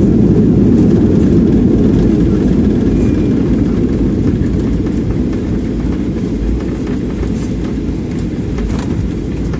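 Boeing 737 on its landing roll, heard from inside the cabin: a loud, steady, deep rumble from the engines and the wheels on the runway. It grows gradually quieter as the jet slows down.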